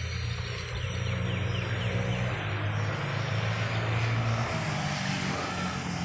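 A motor vehicle's engine running steadily, with a low hum and a wide hiss above it; its pitch shifts about four and a half seconds in.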